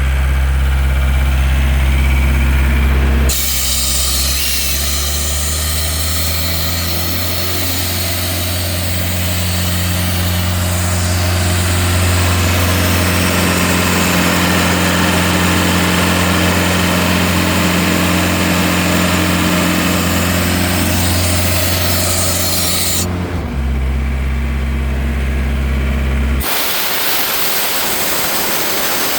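Diesel engine of a Sullair 185 portable air compressor, a John Deere 4024T, idling. A few seconds in, it speeds up under load and a loud rush of compressed air starts. The air hiss and higher engine speed hold steady for about twenty seconds, then the engine drops back to idle. Near the end the engine note gives way to a steady hiss.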